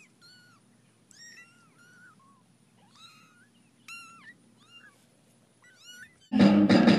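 A very young kitten mewing over and over in short, thin, high-pitched cries, each rising and then falling in pitch. Loud music cuts in suddenly near the end.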